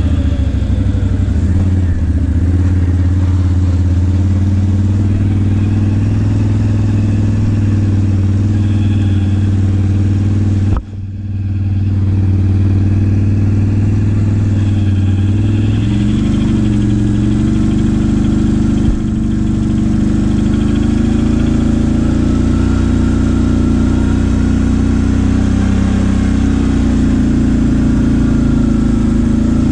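Can-Am ATV engine running loud and steady at low revs, its note rising and falling a little with the throttle. The sound drops out briefly about eleven seconds in.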